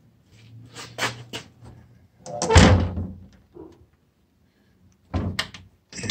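A series of knocks and clunks: several sharp knocks about a second in, one louder, longer clunk about two and a half seconds in, and a few more knocks near the end.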